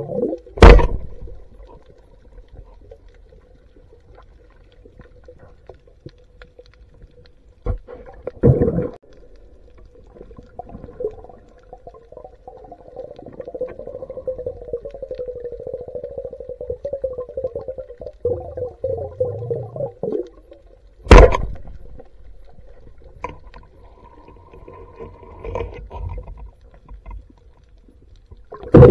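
Muffled underwater sound from a camera below the surface: a wavering hum with gurgling water noise, broken by four loud, sharp knocks.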